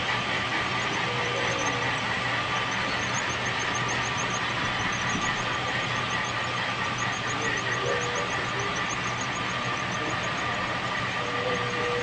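HO-scale model train running on the layout track: a steady whir of motors and wheels on rail, with faint rapid high ticking.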